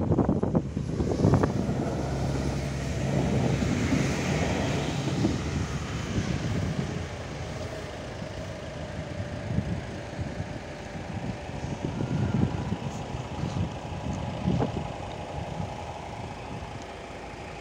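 SA139 diesel railcar running away over the level crossing, its engine hum and rail noise fading steadily, with wind buffeting the microphone.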